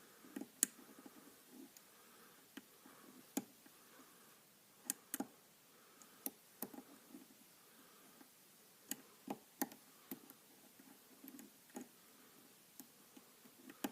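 Faint, irregular clicks and ticks of a lock pick and tension wrench working the pins of a pin-tumbler lock cylinder during single-pin picking, about a dozen small metallic clicks spread out with gaps between them.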